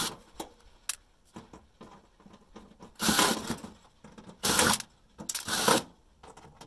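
Cordless drill run in short bursts of about half a second, backing screws out of a toaster oven's sheet-metal case. One burst comes at the very start and three more close together in the second half, with small clicks in between.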